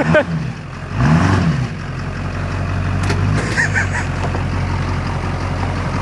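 Chevrolet Silverado 2500HD's 6.6 L Duramax V8 turbodiesel revving once about a second in, its pitch rising and falling back, then running steadily.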